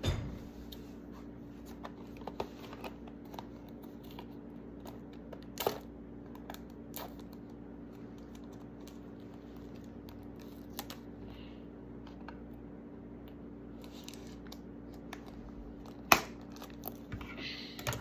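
Scissors snipping into a small cardboard toy box, a few scattered snips and clicks with a sharp loud one near the end, then packaging crinkling as it is pulled open. A steady low hum runs underneath.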